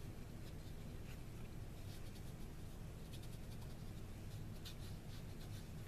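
Faint rustling and scratching of paper as hands press and slide a card across a paper towel, in short soft strokes over a low steady hum.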